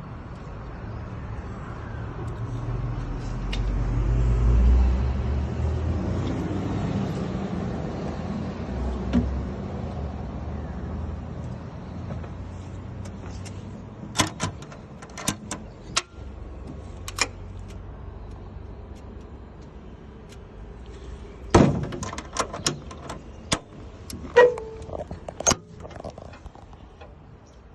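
Excavator's diesel engine running, swelling about four seconds in and then settling to a steady drone. In the second half come two clusters of sharp clicks and metallic knocks, like a door or latches being worked.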